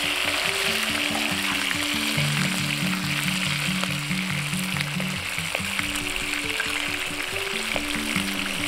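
Hot oil sizzling steadily around a whole fish frying in a pan, under background music with a simple stepping melody.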